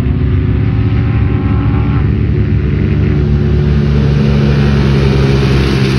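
Engines of several off-road side-by-sides and sand cars running on the dunes: a loud, steady rumble with a haze of noise over it.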